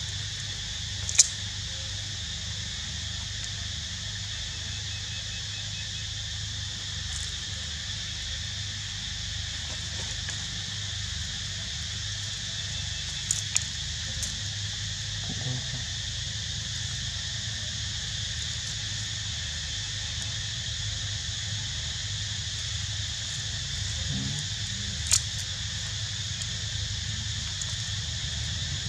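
A steady high-pitched insect chorus, such as cicadas, drones without a break over a low rumble. About four short sharp clicks stand out: one about a second in, two close together around the middle, and one near the end.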